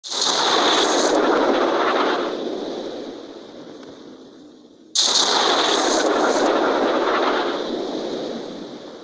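Artillery fire: two shots about five seconds apart, each starting suddenly and loud, then fading slowly over several seconds as a long rumble.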